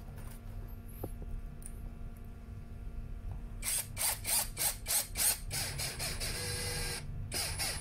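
Toyoko 16.8 V cordless screwdriver driving a small screw into pine at its lowest clutch setting. About three and a half seconds in, the clutch starts to slip with rapid ratcheting clicks, several a second, a sign that the set torque has been reached. The clicks pause briefly near the end.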